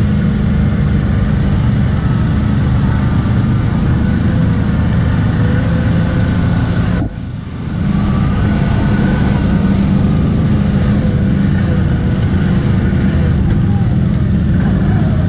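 The 1000 cc engine of a CF Moto X10 ATV running steadily under throttle on a rough trail. It drops off briefly about seven seconds in, then pulls again.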